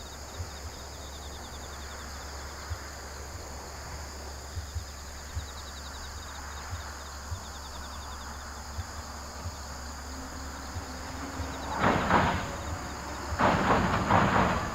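Insects trill steadily in the background. From about ten seconds in, a JR Central 119 series electric train approaches, and about twelve seconds in its wheels start clattering loudly in bursts as it rolls onto the steel railway bridge.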